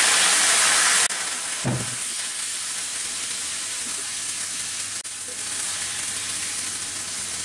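Raw chicken pieces dropped into hot oil and ghee over a high flame: a loud burst of sizzling that settles about a second in to a steady, slightly quieter frying sizzle while a spatula turns the pieces.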